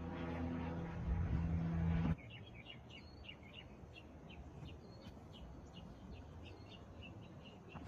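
A steady mechanical drone with a low hum runs for about two seconds and cuts off suddenly. After it, a small bird chirps over and over, about three or four short high notes a second.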